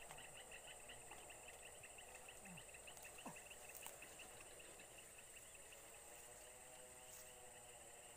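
Faint insects calling: a steady high-pitched buzz with a rapidly pulsing chirp beneath it.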